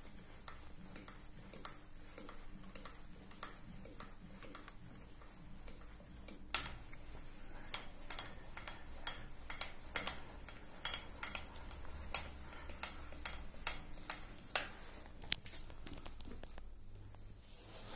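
Scattered light clicks and small metallic taps, irregular and a few seconds apart, over a faint steady hum.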